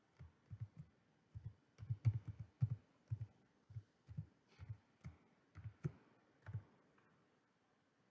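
Typing on a computer keyboard: a run of about twenty dull, uneven key taps that stops near the end.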